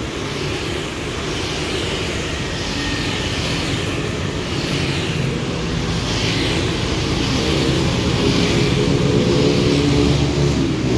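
Street traffic: motorbikes and cars running past on the road, with an engine growing louder over the last few seconds.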